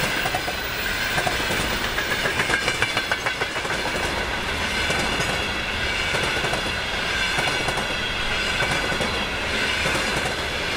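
Freight train's loaded container flat wagons rolling past, their wheels clattering over rail joints with a steady rolling noise and a quick run of clacks about two seconds in.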